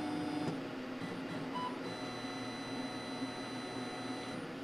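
Thunder Laser BOLT CO2 laser engraver running its autofocus routine: a steady motor hum and whine that drops slightly in pitch about half a second in. A short, faint beep comes about a second and a half in.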